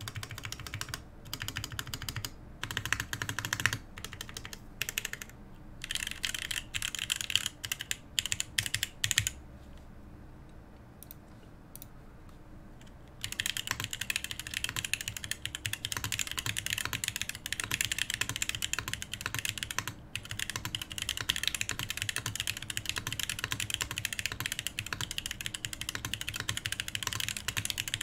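Mechanical keyboard typing on a solid-brass CherryB Neo87 fitted with Holy Panda X tactile switches and DCX keycaps. It starts with short runs of separate key presses, pauses for a few seconds, then goes to steady, fast continuous typing from about halfway through.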